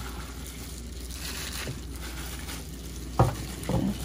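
Hands pressing and shifting wet marinated pork ribs in a glass baking dish, a quiet handling sound, with two short knocks a little past three seconds in.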